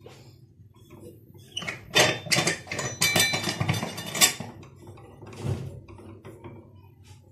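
Aluminium pressure cooker lid being fitted and locked onto the pot: a run of metal clanks, clicks and scraping with brief ringing, then one more knock a little later.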